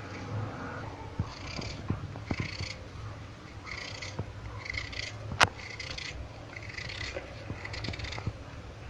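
Knife cutting through a raw potato held in the hand, a crisp cutting stroke about once a second, with one sharp click about halfway through.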